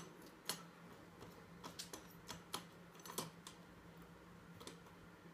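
Metal forks and a spoon hanging on the wall tapping and clinking against the wall as kittens bat at them with their paws: irregular light clicks, a dozen or so, a few sharper than the rest, over a faint steady hum.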